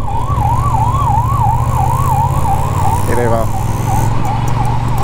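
An emergency-vehicle siren wailing rapidly up and down, about three sweeps a second, fading near the end. Under it is the steady low drone of the Triumph Bonneville T120's 1200 cc parallel-twin engine as the bike is ridden.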